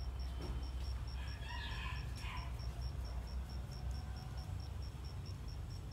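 Outdoor ambience: a high, evenly pulsing insect chirp, about five chirps a second, over a low steady rumble, with a bird giving a short burst of calls about a second and a half in.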